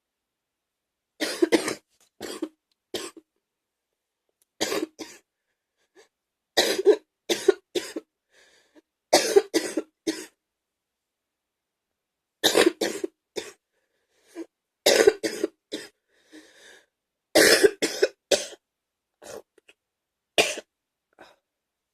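A person's wet, gaggy cough, in short bouts of two to four coughs each, about ten bouts with brief pauses between them.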